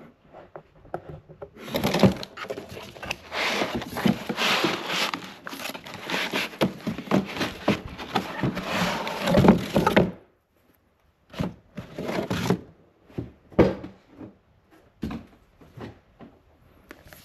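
Cardboard laptop box and foam packing being handled: about eight seconds of dense scraping and rustling. After a second of silence come scattered knocks and taps.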